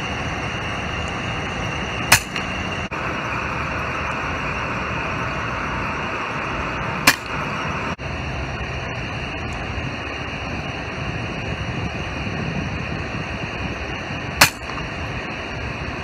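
FX Dreamline Lite .177 PCP air rifle firing three sharp shots, several seconds apart, over a steady background hiss.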